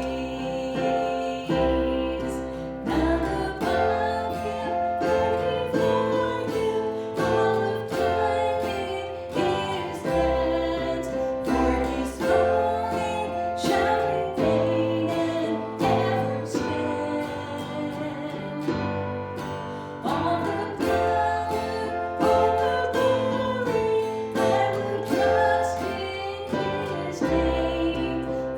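Music: a song with acoustic guitar and singing over a steady beat and bass line.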